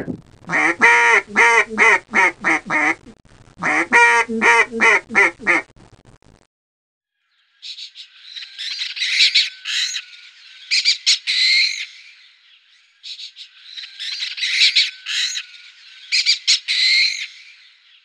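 A duck quacking in two quick runs of about eight quacks each. After a short pause, a kestrel gives high, rapid calls in two long bouts.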